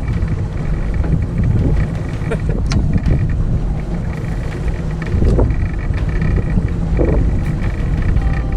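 Boat's outboard motor running steadily under way, a constant low rumble with a faint steady whine above it.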